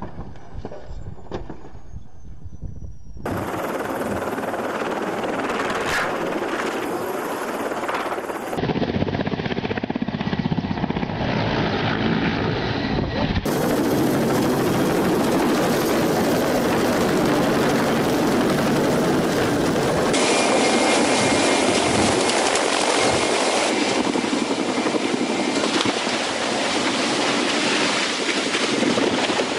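Helicopter rotor and engine noise heard through a run of different crash clips, mostly a dense rushing roar of rotor wash. In the first few seconds a tandem-rotor Chinook breaking up on the ground gives a string of sharp knocks and a falling whine.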